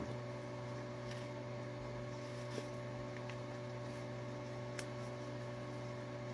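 A steady low electrical hum, with a few faint clicks and rustles as a fabric workout glove is handled.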